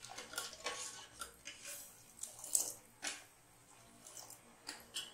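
Steel ladle stirring sugar syrup in a stainless steel pot: irregular scrapes and clinks of the ladle against the pot with sloshing liquid, and syrup poured back into the pot near the end.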